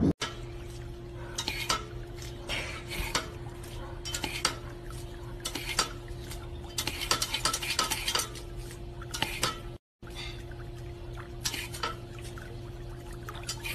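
Irregular clicks and clatters of a dog working the plastic pedal of a step-on water fountain while water spurts, over a faint steady hum.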